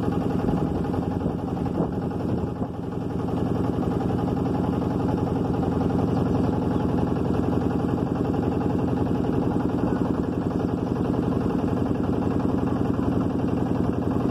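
Motorboat engine running steadily at a constant speed as the boat cruises along the river, with a brief dip in loudness about two and a half seconds in.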